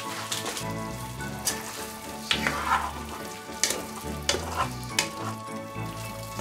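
Banana chunks and walnuts sizzling in a frying pan in a bubbling syrupy glaze while being stirred with a silicone spatula, with several sharp scrapes and knocks of the spatula against the pan.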